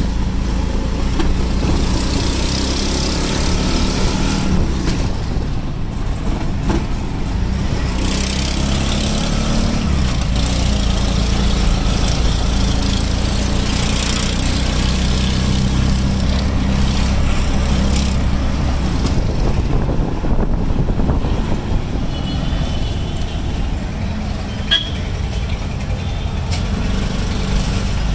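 Auto-rickshaw engine running steadily, heard from inside the open cabin while riding through traffic, with road and traffic noise around. A couple of brief high-pitched beeps near the end.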